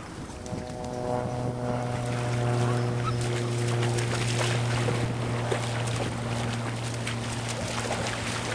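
Motorboat engine droning steadily on the lake, coming in about half a second in, over wind noise on the microphone.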